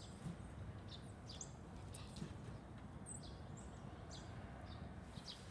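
Wild songbirds chirping: short, high chirps scattered through, faint over a low steady background rumble.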